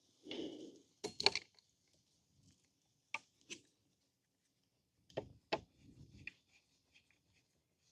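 Workshop handling noises from scooter parts and tools: a brief rustle at the start, then a few scattered light clicks and knocks, two close pairs about a second and two seconds apart, and a short low rumble near the end.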